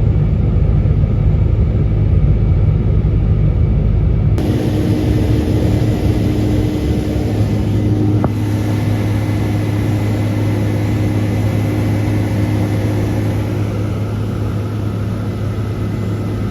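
Case IH 8120 combine running steadily under load while harvesting canola, a loud continuous hum with a few steady tones; its sound changes abruptly about four seconds in.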